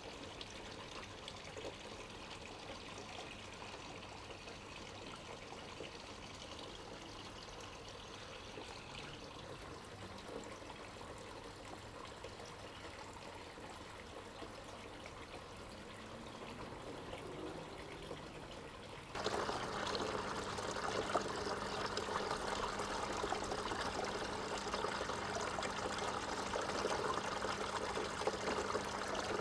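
Water trickling and splashing down a stacked-stone garden water feature, steady throughout. About two-thirds of the way through it suddenly gets louder and brighter, and a steady hum comes in.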